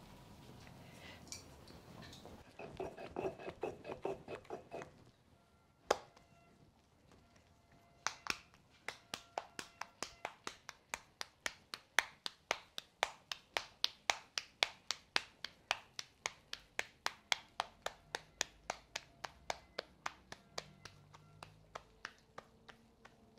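Hands slapping a ball of corn masa back and forth to flatten it into a tortilla: a steady run of sharp pats, about three a second, from about eight seconds in almost to the end. A shorter run of quicker taps comes a few seconds in, and a single sharp knock shortly before the long run.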